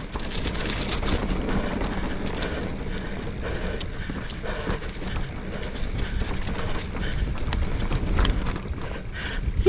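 Mountain bike rolling down a dirt singletrack, heard from a camera on the bike or rider: tyres on dirt with a low rumble and a string of rattles and clicks as the bike jolts over bumps. Near the end the tyres run onto a bridge of log planks.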